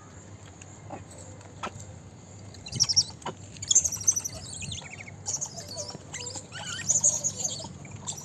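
Young gray langurs giving high-pitched squeaks and chirps in quick bursts as they jostle one another, starting about three seconds in and loudest in the middle, over a faint steady high tone.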